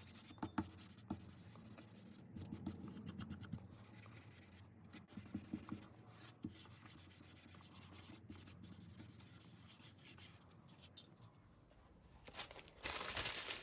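Faint, intermittent rubbing and scratching of oil finish being wiped onto a veneered wooden panel, in short runs of strokes, a little louder near the end.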